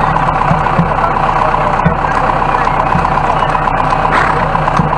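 A vehicle engine idling steadily, loud and close, with an even low hum and fine ticking.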